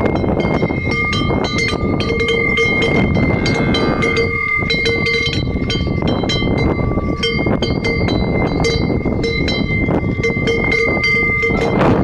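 Cowbells on grazing cattle clanking again and again as the cows move, their ringing tones held between strikes, over wind rumbling on the microphone.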